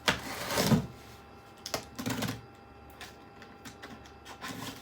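Cardboard packaging of a PC case being handled: a few short scraping and rustling noises with sharp clicks, the loudest in the first second.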